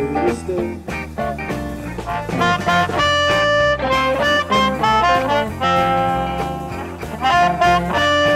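Blues band playing live: an amplified harmonica solo of long held notes over electric bass and drums, after a bending electric guitar phrase in the first moment.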